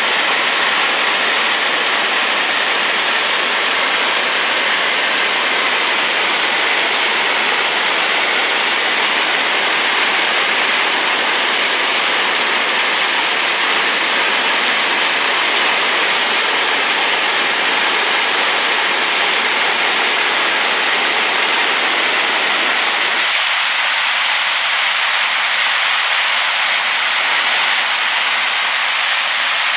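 Waterfall in spate after rain, a loud, steady rush of falling water. Near the end, the deeper part of the sound thins out.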